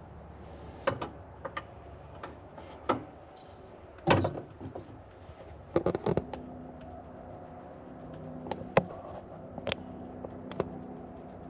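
Scattered clicks and light knocks of an oil filter cap and its O-ring being handled by hand, a few of them sharper, with a steady low hum starting about six seconds in.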